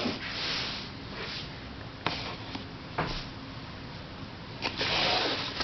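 Handling of plastic puzzle cubes: a few light clicks and knocks as they are picked up and set down, with rustling near the start and again near the end.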